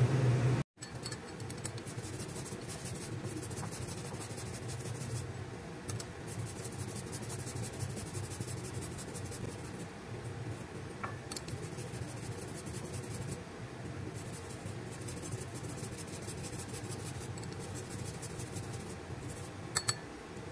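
Fresh ginger grated on a metal box grater: runs of rapid rasping strokes with short pauses between them.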